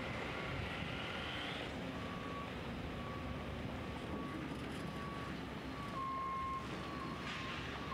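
A vehicle's backup alarm beeping about once a second, each beep about half a second long, over a steady hum of site machinery and traffic. Early on a machine whine rises in pitch and stops short.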